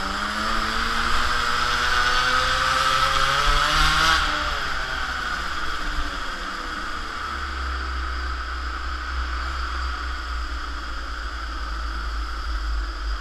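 Two-stroke mini moto engine heard onboard, revving up with rising pitch, then backing off sharply about four seconds in and running on quieter under a steady low rumble.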